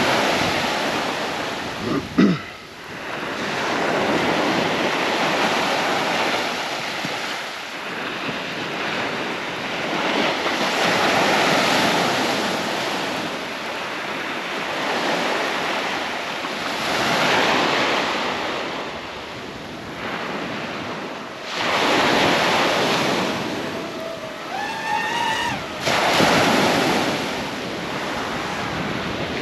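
Small surf breaking and washing up a sandy beach, swelling and falling away every few seconds, with wind on the microphone.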